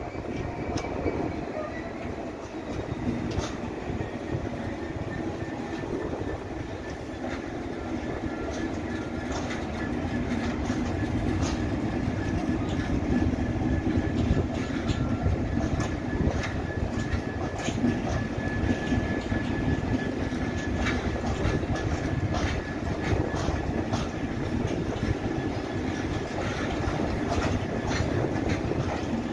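A loaded freight train of open box wagons rolling slowly past, a steady low rumble from the wheels and running gear. Irregular clicks and clunks come as the wheels pass over rail joints, and a faint thin high squeal from the wheels sets in about a third of the way through and holds.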